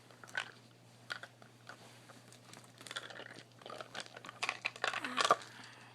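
Hands rummaging and handling objects: crinkling rustles and scattered light clicks, growing busier and louder in the second half.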